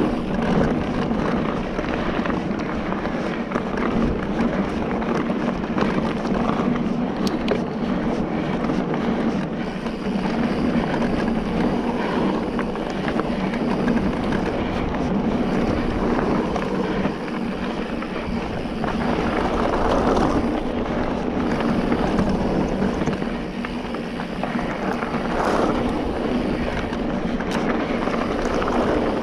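Continuous rush of wind on the microphone mixed with tyre and trail noise from an electric mountain bike being ridden along a trail, with a steady low hum under it.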